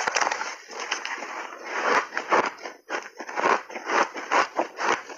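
Refrozen shaved ice being chewed in big bites: crisp, crackling crunches that come thick at first, then settle into a rhythm of about three a second.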